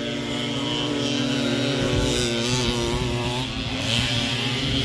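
Several motocross motorcycle engines running at once on the track, a steady multi-toned drone that swells a little midway.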